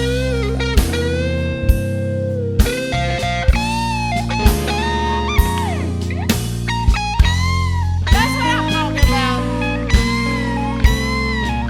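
Blues band playing an instrumental break: an electric lead guitar solos with bent, sliding notes over bass and a steady drum beat.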